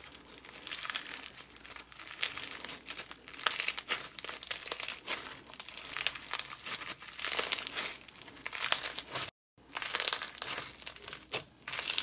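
Floam slime packed with mixed-size foam beads being squeezed, stretched and folded by hand, giving a dense, irregular crunching crackle with bubble pops. The crackling breaks off for a moment once, just after nine seconds.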